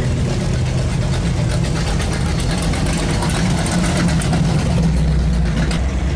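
Engines of classic and muscle cars running as they cruise slowly past one after another, a steady deep exhaust note that grows stronger near the end.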